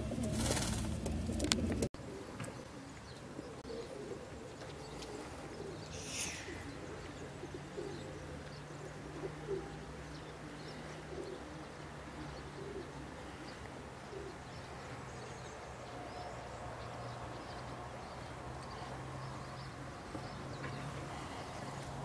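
Racing pigeons cooing softly and repeatedly, with a single high falling chirp from another bird about six seconds in, over a faint steady low hum.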